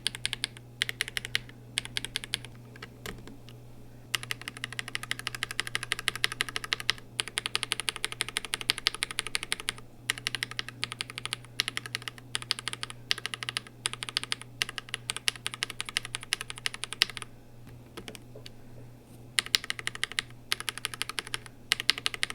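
Fast typing on a KBD67 Lite hotswap mechanical keyboard with linear switches, dense keystrokes in several runs broken by short pauses, over a steady low hum.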